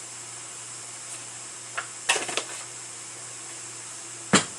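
A few short knocks and clatters of seasoning containers being handled: a cluster about two seconds in and the loudest single knock near the end, over a steady low hum.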